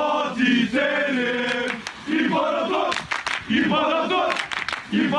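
Crowd of football supporters, mostly men's voices, chanting a rhythmic sung terrace chant in unison. A flurry of sharp cracks cuts through about three seconds in, and more follow a second or so later.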